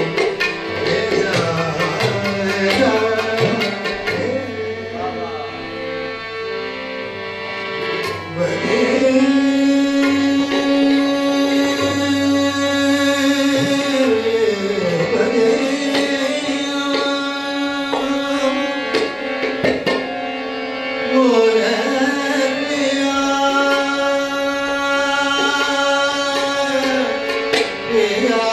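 A man singing a song in long held notes that slide from one pitch to the next, accompanied by harmonium and tabla. The tabla strokes are busiest in the first few seconds.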